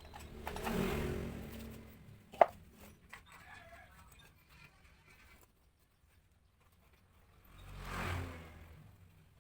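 Two vehicles passing by, each swelling up and fading away, one about a second in and one near the end, with a single sharp click between them.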